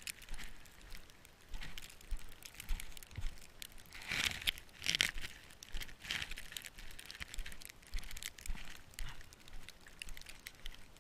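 Snow crunching and compacting in irregular bursts about twice a second, louder around the middle.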